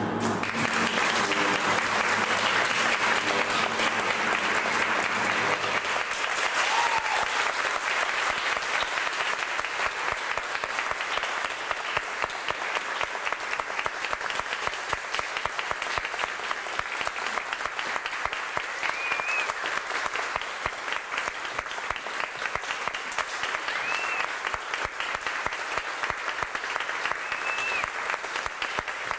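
Audience applauding, with the clapping dense at first and thinning into more separate claps in the second half.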